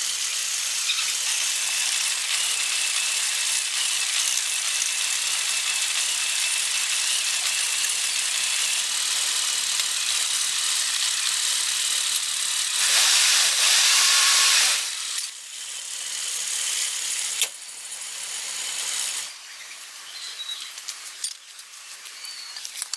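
Food frying in a hot pan, sizzling steadily, with a louder surge of sizzle about 13 seconds in that lasts about two seconds. The sizzle then cuts off, and quieter scattered clicks and handling sounds follow.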